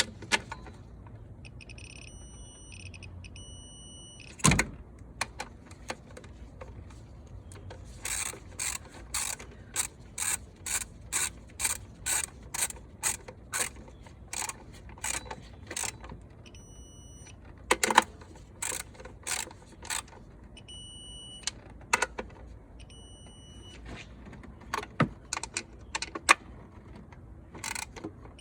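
A ratcheting wrench and socket tightening intake manifold bolts: quick bursts of ratchet clicks, about two a second, through the middle of the stretch, with a few single sharp clicks or tool knocks between. A high electronic tone sounds briefly three times.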